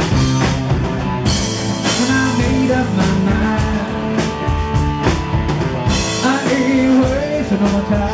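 Live rock band playing, with electric guitar, piano and a drum kit keeping a steady beat with cymbal crashes, and a singer's voice over the top.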